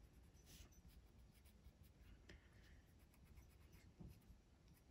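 Faint scratching of a sharpened soft-core, oil-based Brutfuner colored pencil laying gray onto paper; it glides with little drag.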